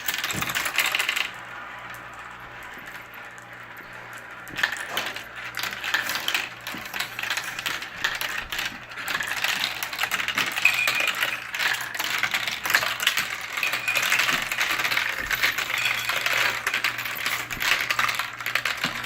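Marbles rolling and clattering down a plastic Marble Genius marble run: a steady stream of small clicks and knocks, quieter from about a second in to four and a half seconds in, then a busier clatter as more marbles run through the track.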